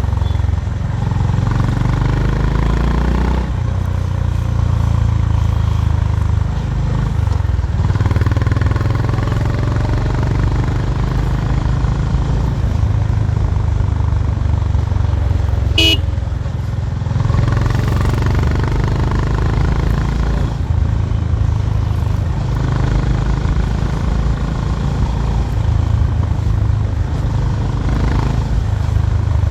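Honda H'ness CB350's 348 cc air-cooled single-cylinder engine and exhaust under way, the revs climbing and dropping back repeatedly as it runs up through the gears. A brief high-pitched horn beep sounds about halfway through.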